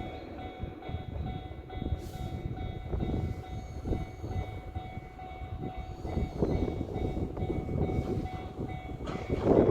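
Toyama Chihō Railway electric train rolling over a level crossing, a low rumble with irregular knocks from the wheels, while the level-crossing bell rings steadily. The bell stops about nine seconds in and the train noise swells louder.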